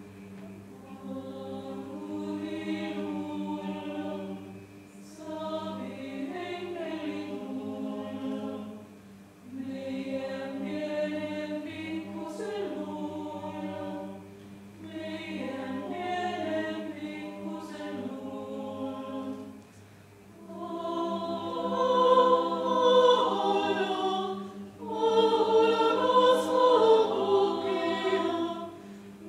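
Choir singing a cappella in short phrases separated by brief breaths, growing fuller and louder about two-thirds of the way through.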